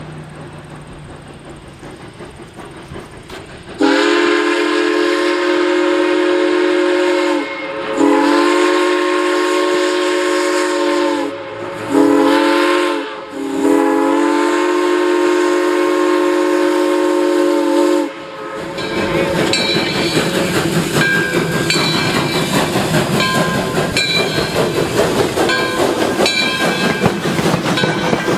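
Arcade & Attica steam locomotive's whistle blowing two long blasts, a short one and a long one, the standard signal for a grade crossing, as the train nears the crossing. After the whistle the locomotive and its passenger coaches roll past close by, their wheels clicking rhythmically over the rail joints.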